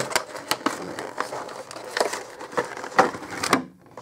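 Stiff clear plastic packaging insert being handled and pulled apart, giving irregular crackles and clicks.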